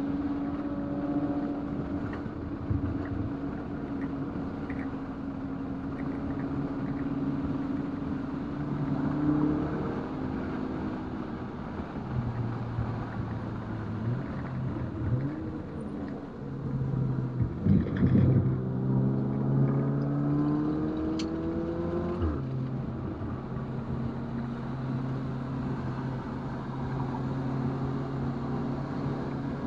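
Stage 2-tuned 2019 VW Golf R's 2.0-litre turbocharged four-cylinder engine running at speed on track. The revs climb, drop back at shifts and lifts, and climb again, with a brief louder disturbance around the middle before the engine settles to a steady note near the end.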